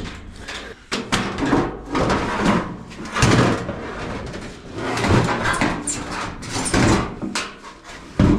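The drum of a GE electric dryer being worked loose and pulled out of its cabinet: a run of metal clunks, bangs and scraping. The loudest bang comes near the end.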